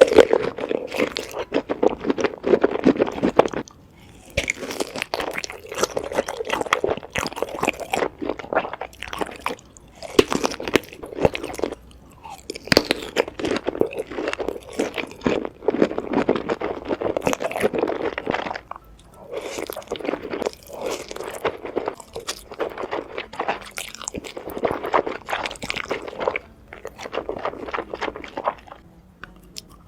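Close-miked mukbang eating: a person chewing and crunching food with wet mouth sounds, in bouts of several seconds separated by short pauses.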